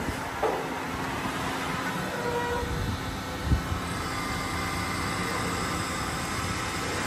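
A CNC machine running: steady mechanical noise with faint whining tones, and a single thump about three and a half seconds in.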